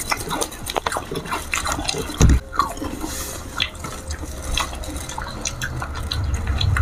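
Wet, crunchy chewing and mouth sounds of someone eating juicy fresh fruit pieces, a run of short clicks and smacks, with one louder thump a little over two seconds in.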